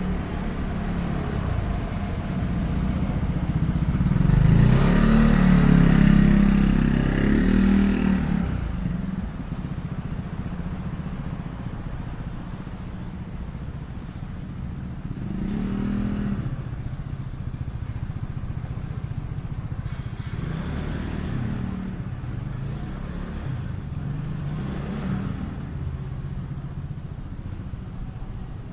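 Street traffic: a motor vehicle passes close by, swelling loudest about five to eight seconds in, then a few more vehicles pass more faintly over a steady low rumble of traffic.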